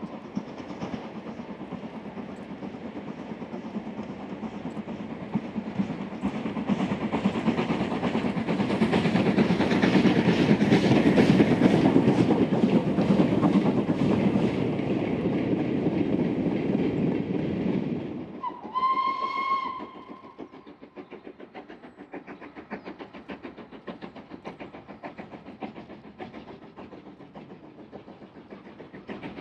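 Steam locomotive passing at speed with a fast, even beat, growing loud and peaking about a third of the way in, then falling away. A short steam whistle blast sounds about two-thirds through, after which a quieter rhythmic running continues.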